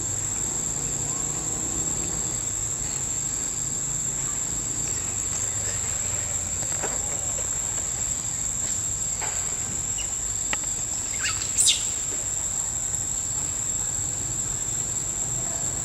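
Steady, high-pitched drone of forest insects, with a few faint clicks and a short, sharp rising chirp about two-thirds of the way through.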